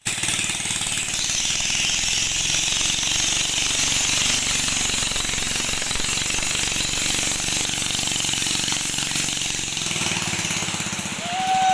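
An engine running steadily with a fast, even low chugging, under a constant high hiss. A short steady tone comes in near the end.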